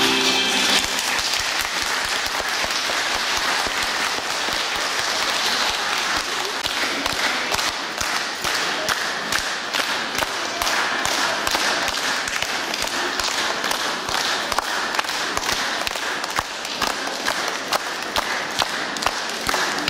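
Audience applauding with dense, steady clapping, thinning to scattered claps near the end. The last notes of the music fade out right at the start.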